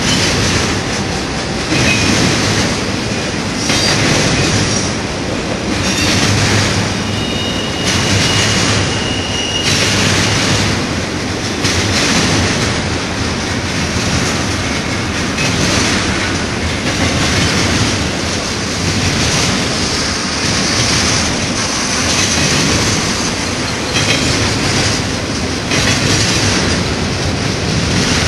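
Double-stack intermodal freight train's well cars rolling past close by: a steady rush and rumble of steel wheels on rail that swells and eases about every two seconds as the cars' wheel sets go by. A short high wheel squeal rings out about eight seconds in.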